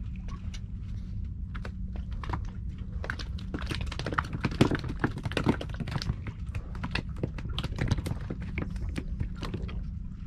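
Irregular rapid clicks and taps, thickest around the middle, over the steady low hum of a boat's engine.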